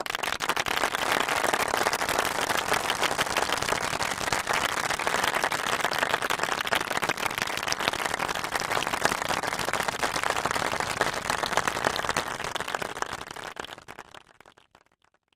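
An audience applauding: dense, steady clapping from many people that starts abruptly, holds for about twelve seconds, then thins out and dies away near the end.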